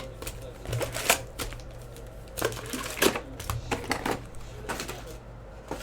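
Trading card packs and cards being handled: irregular rustling and crinkling of foil wrappers with sharp clicks, the loudest about a second in and about three seconds in.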